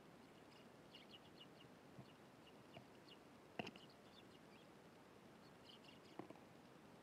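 Faint, short chirps of Eurasian tree sparrows, coming in scattered little clusters, with a sharp tap about three and a half seconds in and a softer one near the end.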